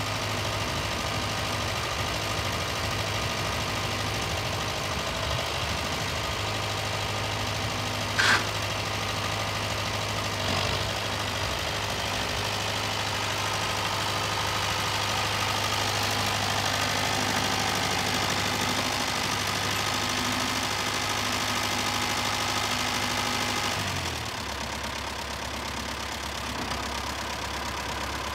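Case 300 diesel tractor engine running steadily as the tractor is driven. There is one brief sharp sound about eight seconds in. Near the end the engine note drops lower and quieter.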